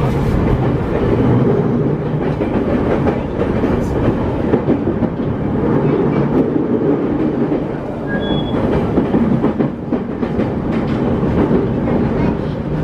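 JR E231 series 1000 suburban electric train running, heard from inside the car: a steady rumble of wheels on rails with occasional clicks.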